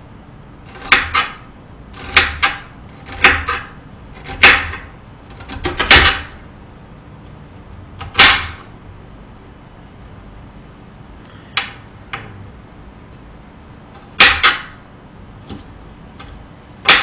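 Kitchen knife chopping an onion on a cutting board: sharp chops, often in quick pairs, about one a second, with a pause of about three seconds in the middle before a few more.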